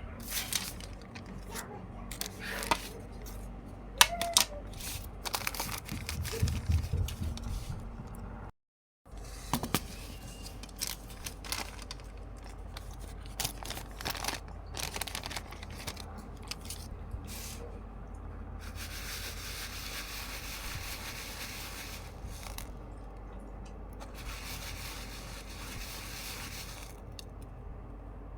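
Kitchen handling sounds: repeated scrapes, clicks and rustling from utensils and packaging, with two stretches of steady hiss in the second half.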